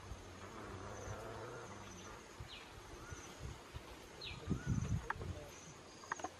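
Insects buzzing and chirping, with a bird giving a short falling call about every two seconds. A cluster of low thuds about two-thirds through is the loudest event, followed by a couple of sharp clicks near the end.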